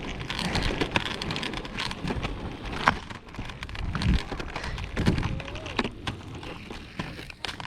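Outdoor air-conditioner or heat-pump unit running: a steady rushing of its condenser fan, with scattered crackles and knocks over it.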